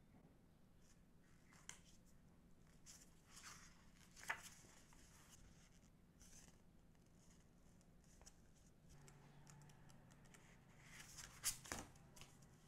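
Faint rustling and sliding of glossy photocards, a folded poster and a hardcover album handled with disposable gloves, with a few light clicks and taps, the sharpest about four seconds in and near the end.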